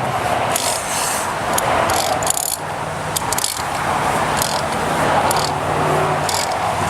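Irregular light clicks and scrapes of the oil filter housing's plastic cap being screwed down and tightened, over a steady background hum and hiss.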